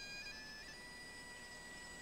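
Quiet background music: a slow melody of long, held high notes that steps in pitch once or twice.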